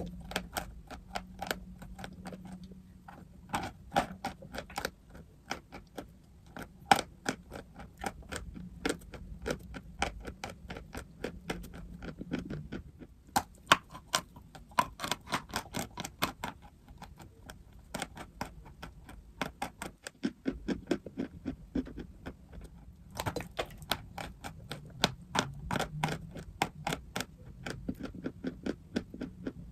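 Dry chalk being crunched close to the microphone: a dense run of sharp crackles and snaps, several a second, thinning out briefly about twenty seconds in.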